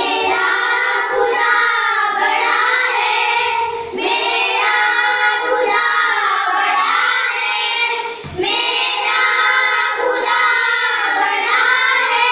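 A group of schoolchildren singing a song together in unison, in sung phrases with short breaks about every four seconds.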